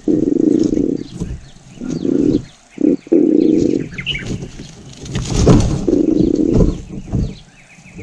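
Birds calling: a low note about a second long, repeated several times, with faint high chirps in between.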